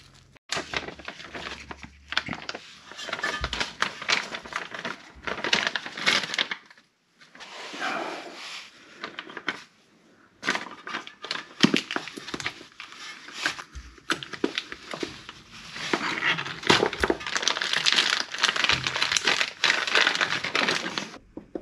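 Rubber steering rack boot being handled and worked onto the rack in nitrile-gloved hands: irregular crinkling, rubbing and clicking in bursts, with brief pauses.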